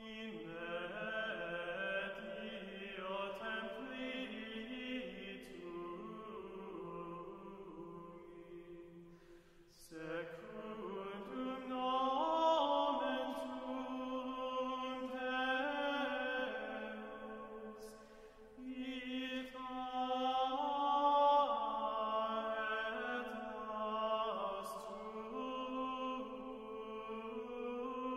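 Slow sung chant in long held notes that move step by step, in long phrases with short pauses about ten and eighteen seconds in.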